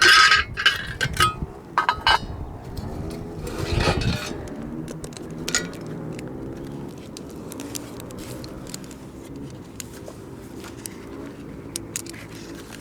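Metal climbing gear (carabiners and hardware) clinking and jangling in the first couple of seconds, with a louder rustle about four seconds in. After that, a fainter, drawn-out pitched sound continues underneath.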